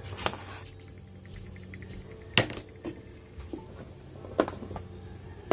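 A few sharp knocks and clacks of plastic kitchenware being handled on a tiled counter, the loudest about two and a half seconds in, with a short run of faint quick ticks a little before it, over a low steady hum.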